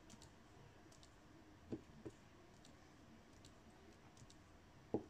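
Faint clicks of a diamond painting pen picking up rhinestone drills from a plastic tray and pressing them onto the canvas: a few soft taps, the loudest near the end, with light ticks between.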